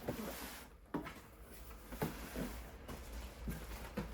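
Box and packing being handled: rustling with several light knocks and clicks.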